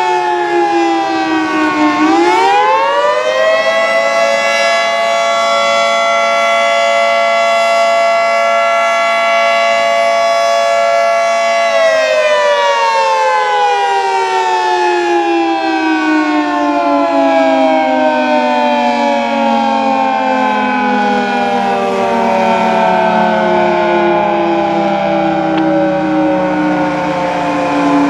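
Fire station's general fire siren wailing, signalling a general fire call rather than the tornado warning. Its pitch dips, climbs quickly about two seconds in, holds steady for about eight seconds, then slowly winds down over the rest.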